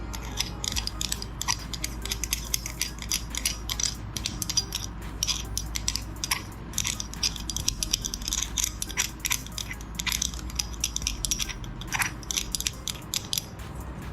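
Meat grinder crunching frozen ice cream, a dense irregular crackle of sharp clicks over a steady low hum.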